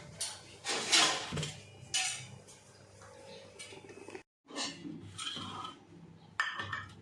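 Utensils clinking and scraping against dishes in a series of short clatters as grilled chicken is moved onto a plate, with a brief break in the sound about four seconds in.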